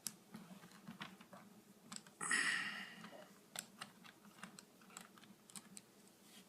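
Light clicks and taps of a screwdriver and small screws being handled on a laptop's screen assembly, with one louder, brief noisy rasp about two seconds in.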